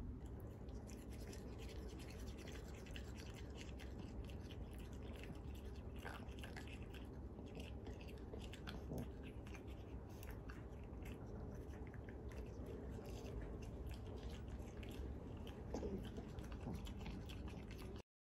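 A small grooming brush scratching through a dog's fur at its paws: a run of faint, quick scratchy clicks over a low steady room hum, cutting off abruptly just before the end.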